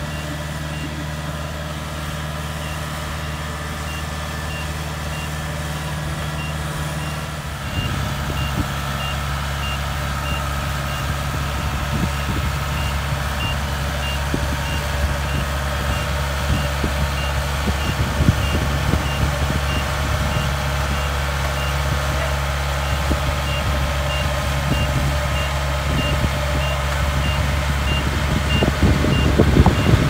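Kubota DC70 Plus combine harvester's 70-horsepower engine running while its reversing alarm beeps steadily in a high tone. About a quarter of the way in the engine grows louder and rougher, with a clattering, and it gets louder still near the end as the machine comes close.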